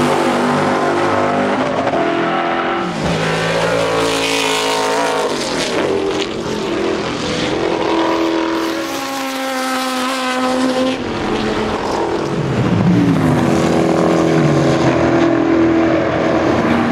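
Lola T70 Mk3B race cars' 5-litre Chevrolet V8 engines at racing speed, loud and unsilenced. The engine note rises and falls again and again as the cars accelerate, lift off and go through the corners.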